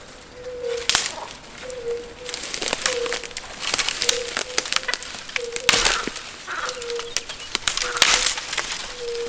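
A bird calling a low, hollow coo over and over, about once a second, with many sharp crackles and rustles, which are the loudest sounds.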